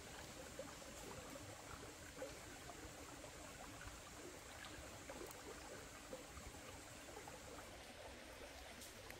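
Faint, steady outdoor ambience in a forest: an even hiss with a thin, high, held tone and a few soft clicks.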